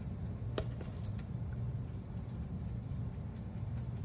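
Soft dabbing and rubbing of a foam ink blending tool on the edges of a paper-covered acrylic block, with a few light taps in the first second or so, over a steady low hum.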